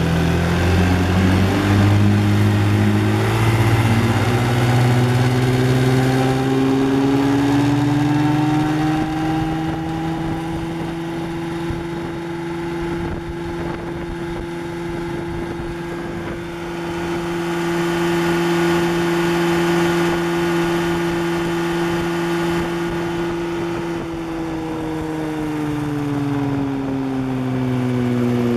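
1957 Johnson 18 hp Sea-Horse two-stroke twin outboard motor running under way: its pitch rises as it throttles up over the first several seconds, holds steady at speed, then drops a little near the end as it is throttled back.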